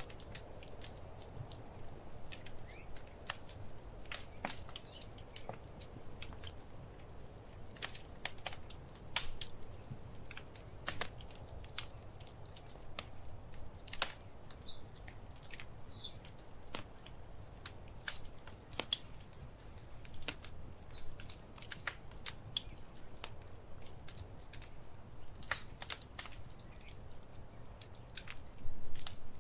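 Wood fire crackling: irregular sharp pops and snaps over a low steady rumble, with a cluster of louder pops near the end.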